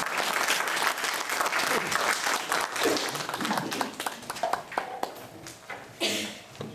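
Small audience applauding: dense clapping that thins out and dies away after about four seconds.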